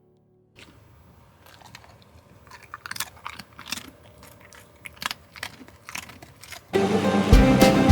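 Scattered, irregular crunching and clicking sounds. About seven seconds in, much louder bluegrass-style music with fiddle and guitar starts up.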